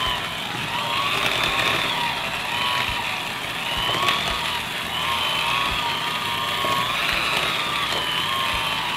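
Corded electric hand mixer running steadily, its beaters working through thick mashed purple sweet potato. The motor whine wavers up and down in pitch throughout.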